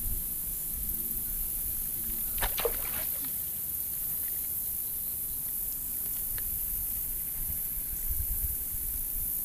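Swamp ambience: a steady high insect buzz over a low rumble, with a short quick run of clicks about two and a half seconds in.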